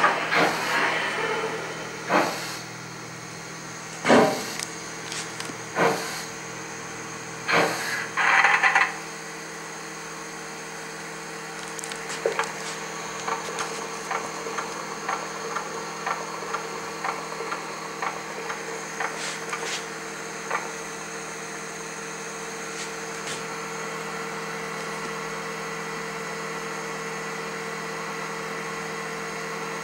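Sound effects of a gauge 1 model steam locomotive: sharp knocks about every two seconds, a short hiss of steam about eight seconds in, then a steady hum with faint scattered ticks.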